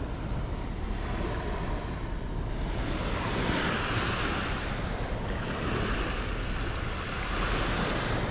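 Sea waves washing onto the shore, the surf swelling twice, about three and a half and seven seconds in, over a steady low rumble of wind on the microphone.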